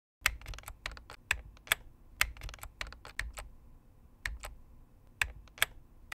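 Typing on a computer keyboard: about twenty quick, irregular keystroke clicks, spelling out a short line, with a pause of almost a second a little past halfway.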